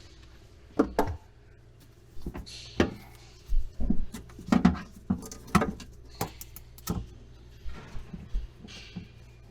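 Irregular sharp knocks and clicks of hand tools and metal parts being handled as the negative battery cable is reconnected, with a few short scraping bursts between them.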